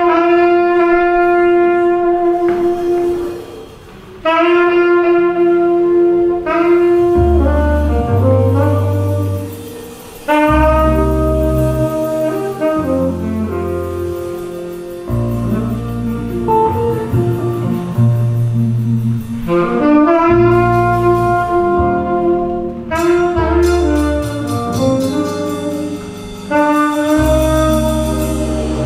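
Saxophone playing the opening melody of a jazz tune alone in long held notes, then the small band's bass line comes in after about seven seconds and carries on under it, with guitar and drum kit backing.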